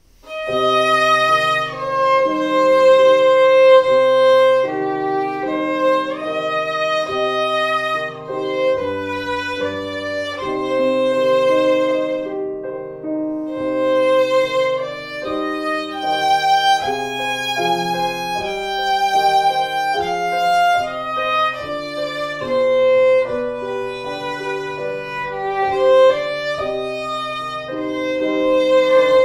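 Viola playing a slow, lyrical melody in long, sustained bow strokes, with a lower accompanying part beneath it.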